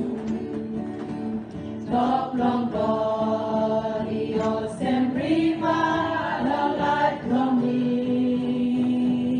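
A women's choir singing a hymn together in harmony, the voices swelling louder from about two seconds in.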